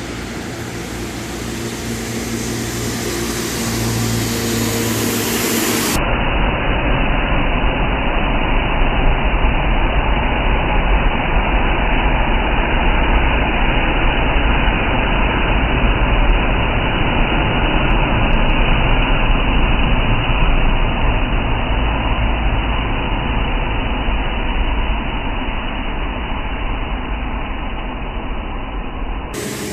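Steady rain noise with a faint steady hum. About six seconds in it turns slowed down and muffled, a deep rushing rumble with no treble, and normal-speed rain hiss returns near the end.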